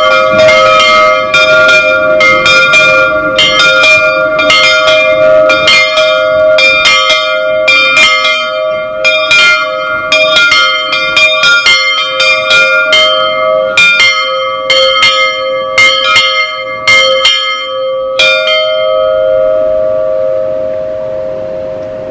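The bells of a small village church, hung in an open brick bell gable, ringing in quick repeated strokes over a steady hum. About nineteen seconds in the strokes stop and the bells ring out, fading away.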